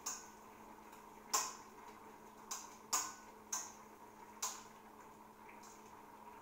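A cooking utensil scraping and knocking against a wok as food is stirred: about six short, irregular strokes, the loudest about a second and a half in and again near three seconds.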